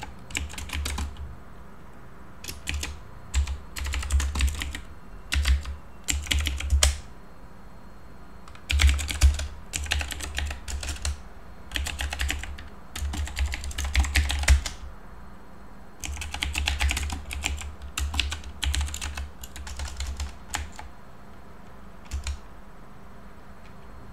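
Typing on a computer keyboard: runs of quick keystrokes broken by short pauses, with a low thud under the key clicks.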